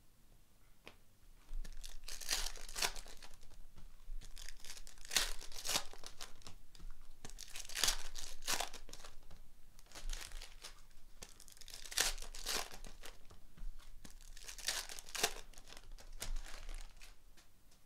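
Foil trading-card packs being torn open and the wrappers crinkled, in several rounds of ripping and crackling starting about a second and a half in.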